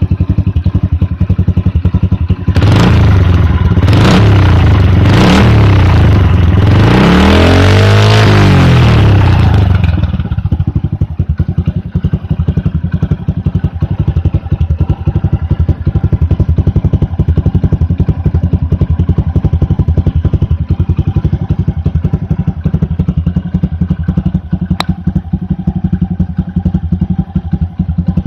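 Honda Super Cub 90's single-cylinder four-stroke engine through a Moriwaki titanium Monster muffler, idling with a quick steady pulse. A few seconds in the throttle is blipped three times, then held in one longer rev that rises and falls before the engine settles back to idle.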